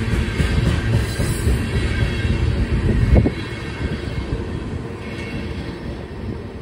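Loaded ballast hopper cars of a freight train rolling past on the rails: a steady low rumble with wheel clatter. A single loud clank about three seconds in, after which the rumble eases a little.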